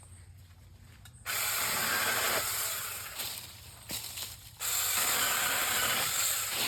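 Earthwise 20V battery-powered mini chainsaw with a 6-inch bar running and cutting into a branch, in two runs of a few seconds each with a brief pause between them.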